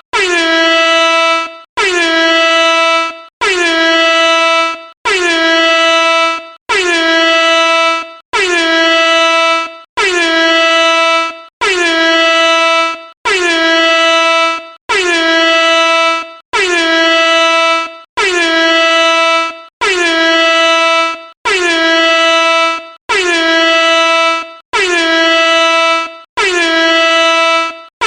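Air horn sounding in repeated blasts, about one every second and a half with only a brief break between them. Each blast opens with a short drop in pitch and then holds one steady tone.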